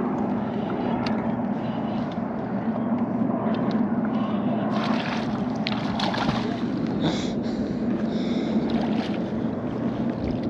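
Boat motor running with a steady hum, with wind and water noise. From about halfway in, short splashes as a landing net is worked in the water to land a hooked fish.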